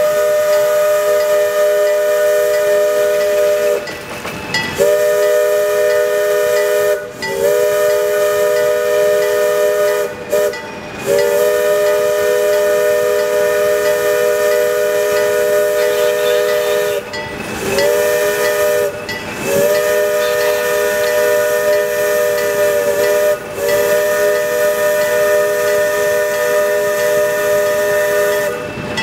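ALCO S2 switcher locomotive's air horn sounding a steady chord of several notes in about seven long blasts, broken by short gaps.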